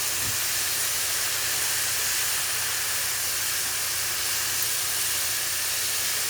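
Chicken frying in a pan, sizzling as a steady high hiss just after being flipped.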